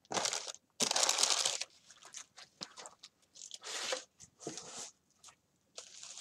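Wrapping paper being handled, crinkling and rustling in several separate bursts, the loudest about a second in.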